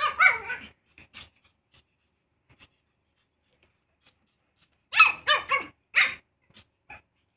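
Pug puppy barking in high yips: a quick flurry right at the start, then a run of several barks about five seconds in.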